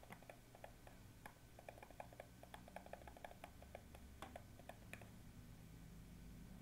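Faint, irregular light clicks and taps of a stylus on a pen tablet during handwriting, several a second, over a low steady hum.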